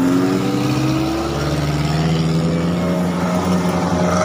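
Engines of modified Suzuki off-road 4x4s running as the vehicles drive slowly past one after another, one engine's pitch rising slightly in the first second before settling to a steady note.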